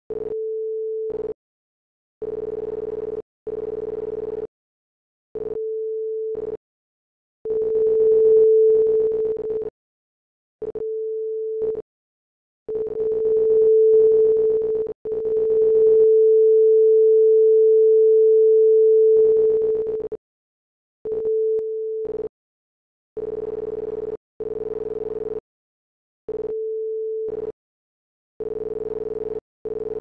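Computer-generated electronic tones at one steady mid pitch, switching on and off in irregular bursts from a fraction of a second to a few seconds long. Some bursts are a pure sine-like beep and others a buzzier version of the same note. The loudest is a long held pure tone of about four seconds past the middle.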